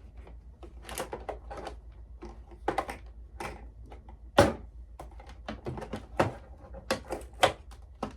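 Hard plastic organizer containers clicking and knocking against each other and the furniture as they are shuffled into place, in an uneven run of clacks with one loud knock about halfway through.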